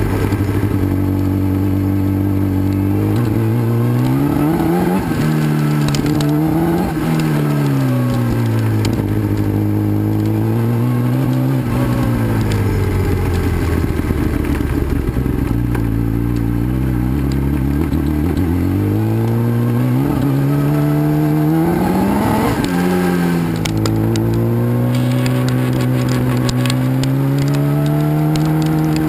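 Kawasaki ZX-10R's inline-four engine heard from on board while riding a gravel track, its pitch climbing under throttle and dropping back at shifts and lift-offs several times over. Gravel crackles and clatters under the tyres throughout.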